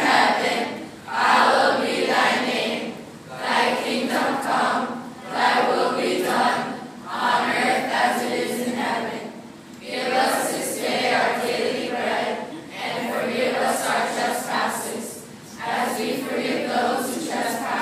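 A class of students singing a prayer together in unison, phrase after phrase with short pauses between.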